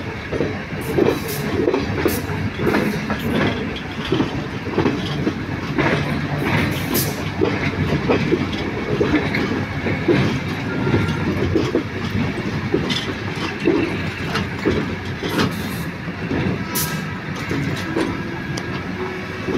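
Passenger train running on the rails, heard from an open carriage doorway: a steady rumble of wheels with frequent irregular clicks and clacks as the wheels pass over rail joints.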